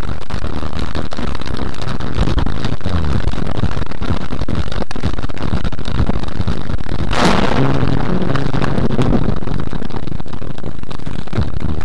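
Loud, distorted steady noise of a car driving in heavy rain, picked up by its dashcam, with a sudden crack of thunder from a nearby lightning strike about seven seconds in.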